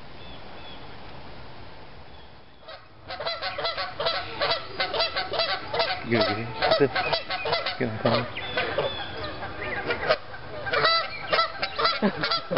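Several Canada geese honking, a dense stream of short overlapping calls that starts about three seconds in.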